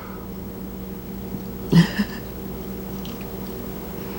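Quiet chewing and mouth sounds over a steady low hum, with one brief, louder mouth sound a little under two seconds in.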